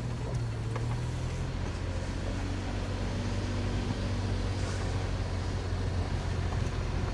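Toyota FJ Cruiser's V6 engine pulling steadily uphill in four-wheel drive on a steep dirt road, with a low, even engine note.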